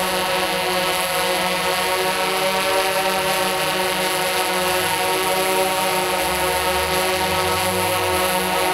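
Tarot X8 octocopter's eight motors spinning DJI 1552 propellers, a steady drone of several stacked tones, growing a little louder near the end.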